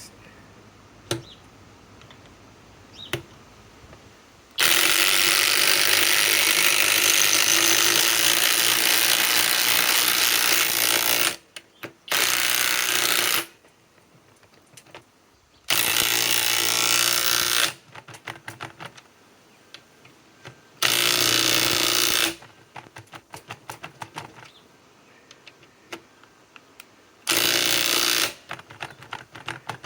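Compact cordless impact wrench hammering as it drives 6-inch lag screws: one long run of about seven seconds, then four shorter bursts of one to two seconds each, with small clicks between them.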